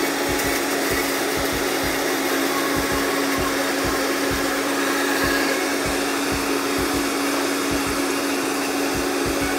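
Countertop blender motor running at a steady high speed, with a constant hum, puréeing blanched basil leaves and oil into a smooth green oil.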